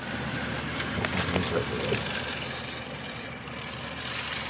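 Burlington Northern model locomotive running on its track pulling a small freight train: a steady whir of the electric motor and wheels on the rails, with a few clicks in the first couple of seconds.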